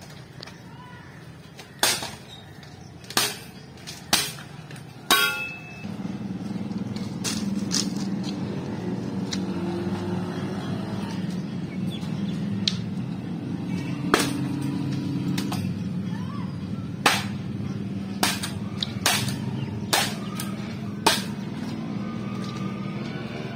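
Bamboo poles being driven down onto a metal splitter, each blow a sharp crack as the cane splits, coming about once a second in irregular runs. From about six seconds in the blows sit over a steady low drone.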